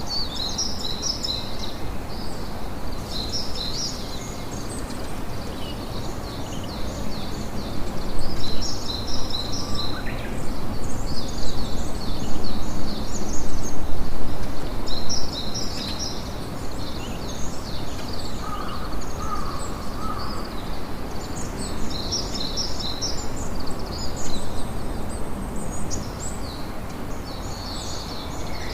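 Campfire crackling steadily, louder for several seconds partway through, with birds chirping repeatedly over it.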